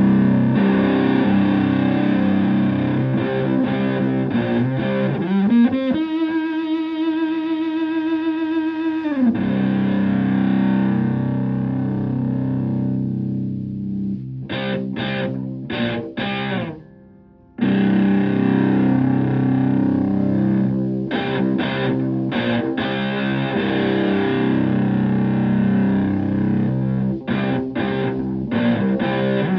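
Stratocaster electric guitar through an EarthQuaker Devices Hoof fuzz pedal into a tube amp, playing thick fuzzed chords and riffs. About six seconds in, a single note is held for a few seconds with vibrato. Just past the middle, the playing stops briefly, then resumes.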